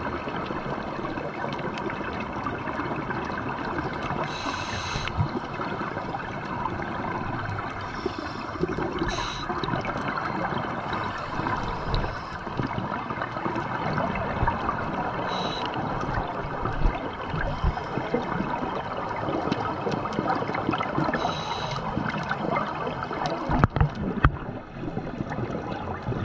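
Underwater ambience picked up by a submerged camera: a steady crackling hiss, with a short hissing burst about every five to six seconds and a few low thuds near the end.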